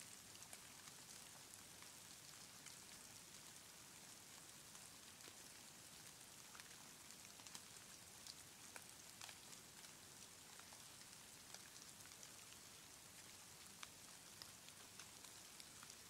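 Faint patter of falling precipitation on leaves and snow: a soft steady hiss with scattered light ticks at irregular moments.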